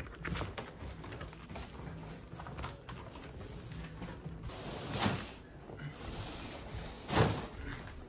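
Large cardboard box being pulled open and its lid dragged off a mirror on carpet: rustling and scraping of cardboard, with two louder swishes about five and seven seconds in.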